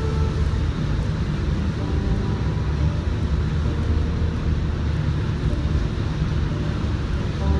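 Paint spray booth exhaust fan running with a steady low rumble.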